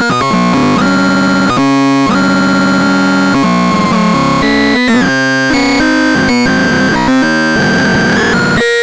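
Homemade DIY synthesizer playing a buzzy, noisy sequence of notes that jumps to a new pitch about every half second, with a couple of brief cut-outs and a short upward glide near the end.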